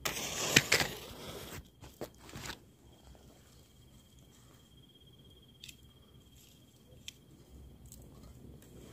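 Rustling and scraping handling noise for about the first two and a half seconds, then a faint, steady, high insect trill like a cricket's, with a couple of small clicks.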